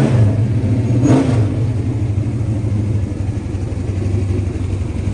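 Big-block dirt modified race car's V8 engine idling loudly and steadily, with a brief swell about a second in.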